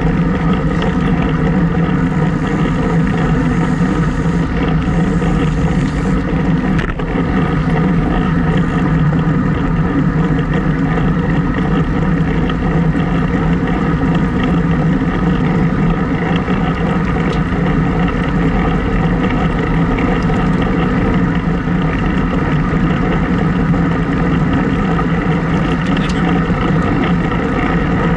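Steady wind and road noise rushing over an action camera's microphone while cycling into a head wind.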